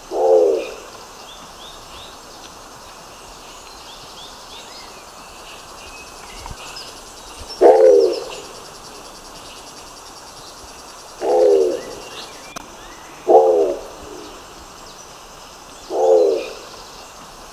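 Nicobar pigeon giving five short, low calls at uneven gaps of two to seven seconds, each a brief note that drops in pitch. Faint high chirps of other birds are behind them.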